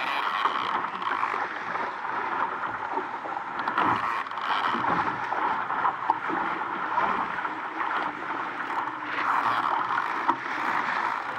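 Water rushing and splashing along the hull of an RS Aero racing dinghy sailing fast, as a steady hiss that swells and eases, with a few short knocks.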